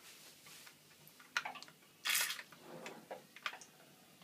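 Water in a bathtub splashing and dripping, with a few sharp clicks and a short splash about two seconds in.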